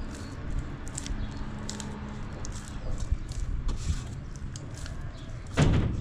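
Hands kneading a large mass of bread dough in a metal basin: soft squishing and pressing with small sticky clicks, and one louder thump near the end.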